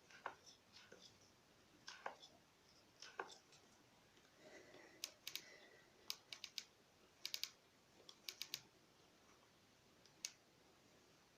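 2013 Fox CTD Evolution shock knocking in sharp, irregular clicks, some single and some in quick runs of three or four. The knock comes from play in the compression-mode control rod inside the damper.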